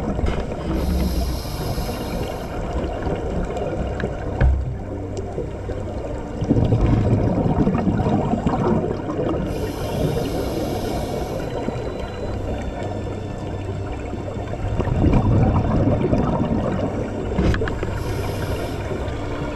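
Scuba regulator breathing picked up underwater: three hissing inhalations several seconds apart, and between them the low, bubbling rumble of exhaled air.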